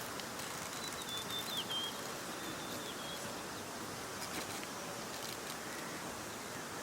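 Steady rural outdoor ambience with a few faint, short, high bird chirps about one to three seconds in, and a couple of light clicks around the middle.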